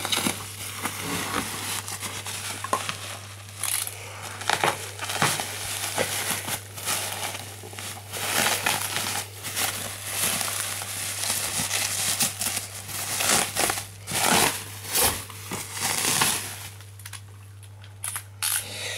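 Packaging being handled and pulled away from boxed toys: continuous crinkling and rustling with many sharp crackles, dying down about two seconds before the end.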